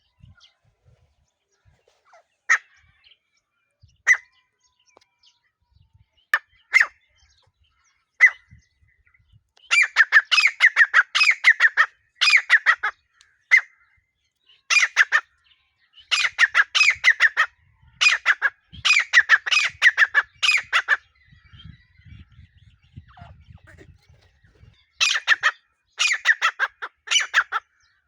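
Grey francolin (desi teetar) calling: a few single shrill notes a second or two apart, then long bouts of rapidly repeated, piercing calls from about ten seconds in, with a pause before a last bout near the end.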